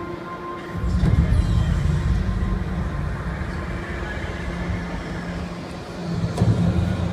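Deep, vehicle-like rumbling played through a large hall's sound system during a staged show, swelling about a second in and again near the end, over a steady droning tone.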